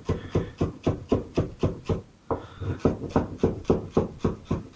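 Large kitchen knife rapidly chopping fresh parsley on a wooden chopping board, an even run of about five knife strikes a second. The chopping pauses briefly about two seconds in, then resumes, and stops just before the end.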